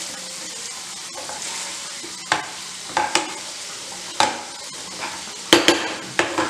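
Metal potato masher mashing a potato and grated paneer stuffing in a frying pan, over a steady soft sizzle of oil. From about two seconds in it knocks sharply on the pan bottom at irregular intervals, several times.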